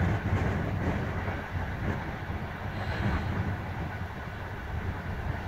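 Passenger train running at speed, heard from inside the carriage: a steady low rumble of the wheels on the track, a little louder in the first second or so.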